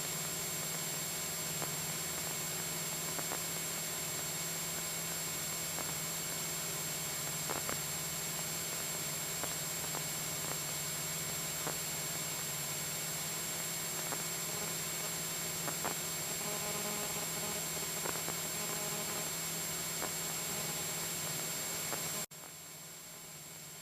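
Steady hiss and low drone of a Cessna 172SP cabin in cruise, heard through the headset intercom, with a few faint clicks. The hiss drops sharply about a second and a half before the end, as an open intercom mic closes.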